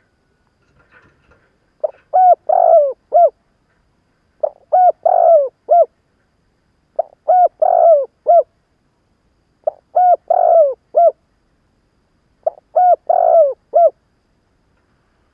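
Spotted dove decoy bird cooing its territorial call, the kind used to lure wild doves. Five phrases of four or five notes each, repeated about every three seconds.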